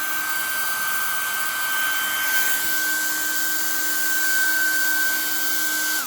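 Handheld hair dryer running on its high setting, a steady rush of air with a constant motor whine. Near the end it is switched off, and the whine falls away as the motor spins down.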